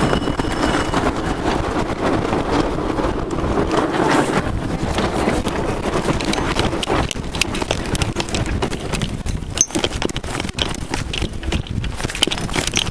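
Wind buffeting the microphone over water rushing along a sailboat's hull, with sailcloth rustling as a sail is gathered in by hand. From about seven seconds in, a run of sharp knocks and clatter.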